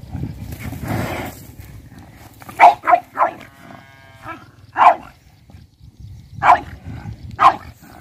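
Pug barking at a water buffalo: about six short, sharp barks spaced irregularly, with a breathy rush of noise about a second in.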